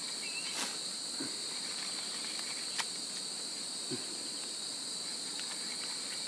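Steady high-pitched insect chorus, an unbroken drone in two pitch bands, with a couple of faint clicks.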